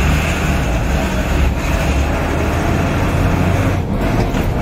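Fire engine's motor running steadily while driving, heard from inside the cab as a low rumble with road noise, dipping briefly near the end.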